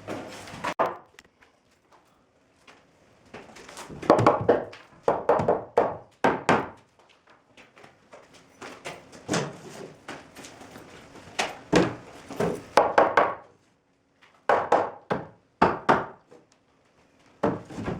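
Irregular wooden knocks and thuds from carpentry work on a wood frame, coming in short clusters of strikes with quiet gaps between them.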